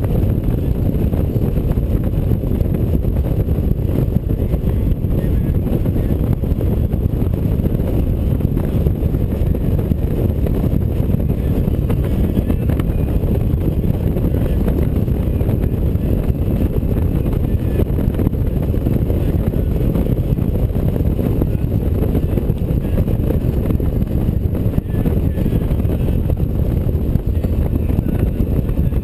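Steady low rumble of wind rush and engine noise from a touring motorcycle cruising along an open road, picked up on the bike behind its windshield.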